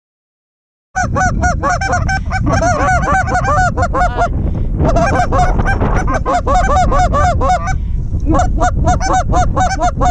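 A flock of Canada geese honking, many rapid calls overlapping, starting about a second in and easing briefly twice, over a low wind rumble on the microphone.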